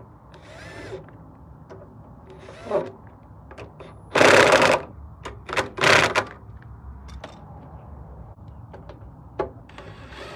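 Tools tightening the bolts on a snowblower engine's covers: several short bursts of tool noise, the two loudest about four and six seconds in, among scattered metallic clicks.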